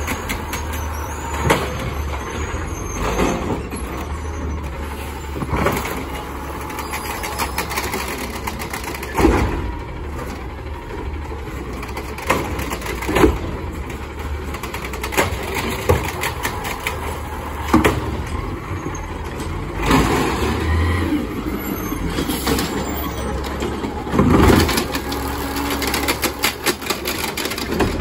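Natural-gas automated side-loader garbage truck running steadily while its hydraulic arm grabs, lifts and dumps carts. A loud bang or clatter comes every few seconds as carts are shaken out into the hopper and set back down.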